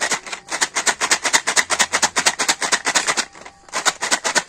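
Snail shells rattling against the sides of a plastic jar that is being shaken hard, about six or seven rattles a second with a short pause near the end. The snails are being shaken to clean the dirt off them.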